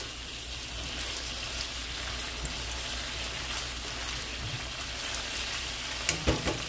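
Diced chicken breast sizzling steadily in oil in a nonstick frying pan, with a few sharp clicks about six seconds in.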